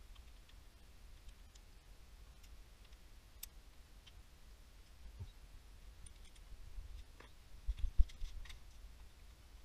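Faint clicks and light metal clinks of hand tools working the oil pan bolts on a cast-iron engine block. A cluster of sharper clinks and low knocks comes near the end, with one loud knock about eight seconds in.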